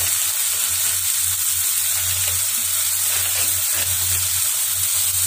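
Onions, tomato and dried red chillies sizzling steadily in hot sesame oil in a non-stick pan, with sambar powder just added.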